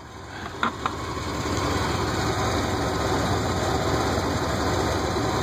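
Chevy Silverado pickup's engine idling steadily with the hood open; the idle sound swells up over the first two seconds. Two short clicks come under a second in.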